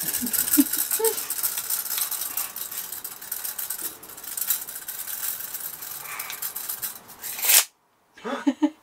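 Steel tape measure's blade being pulled out and sliding back into its case, a dense rattling and clicking, with a baby's brief babble about a second in; it cuts off suddenly near the end.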